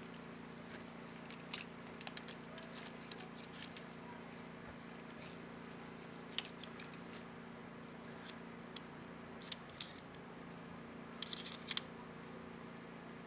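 Scattered small plastic clicks and snaps from handling a laptop keyboard's space bar keycap, in short clusters, over a steady low hum.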